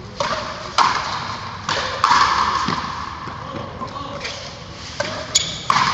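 Frontenis rally: a rubber ball cracking off rackets and the frontón wall, about eight sharp hits spaced from a fraction of a second to about two seconds apart. Each hit rings in the big covered court.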